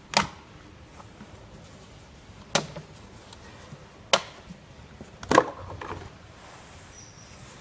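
Four sharp plastic clacks, spaced a second or two apart, the last the loudest, as the plastic air filter housing of a Kia Picanto engine bay is worked loose and its lid lifted.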